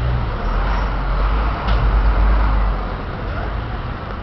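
Street traffic: cars and taxis running along the road, a steady noisy rumble that swells to its loudest about two seconds in.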